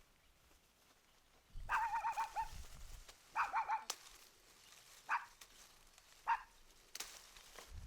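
A dog whining: two longer, high, trembling whines, then two short yelps.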